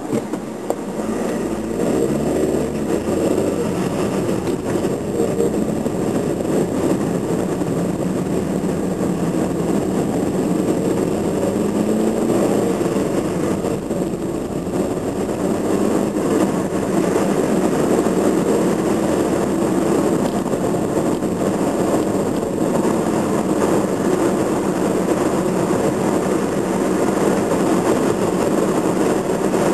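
Car engine and road noise heard from inside the cabin as the car pulls away from a standstill, the engine pitch rising in the first few seconds. It settles into a steady drone of engine and tyres at road speed.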